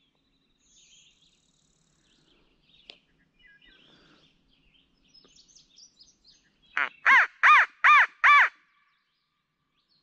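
Crow locator call blown in a quick string of five caws, one short and then four loud ones, each rising and falling in pitch: a hunter's crow call used to make a turkey gobbler shock-gobble. Faint songbird chirps come before it.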